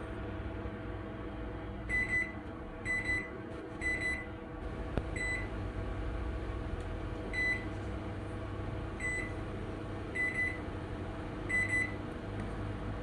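Hitplus Necxus microwave oven running with a steady hum, while short high beeps sound eight times at uneven intervals.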